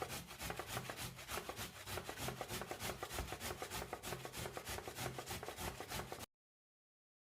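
Peeled ginger root being grated, with quick, even rasping strokes of about five or six a second that stop abruptly about six seconds in.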